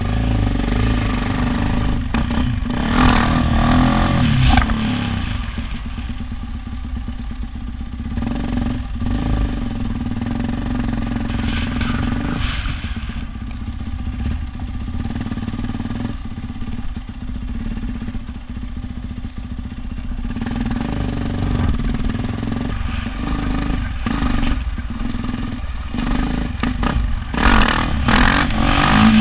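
Yamaha YZ450F dirt bike's four-stroke single-cylinder engine running while being ridden, the throttle opening and closing. There are louder revving surges about three seconds in, around twelve seconds, and near the end.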